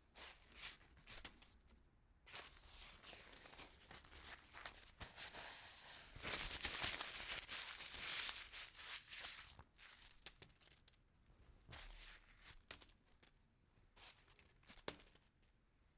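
Paper being crunched and crumpled: irregular crackles, a denser, louder spell of crumpling in the middle, then sparse crinkles and snaps.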